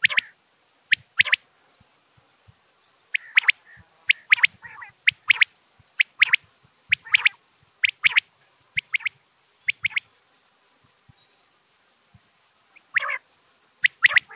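Quail calling: short, sharp high notes in quick pairs, repeated about once a second. After a pause near the end comes a lower, rasping call.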